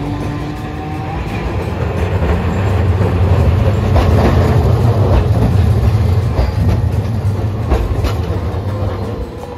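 A Hiroden streetcar running past close by: a low rumble of motors and wheels that swells to its loudest in the middle and eases off near the end, with a few sharp clacks as the wheels cross track joints.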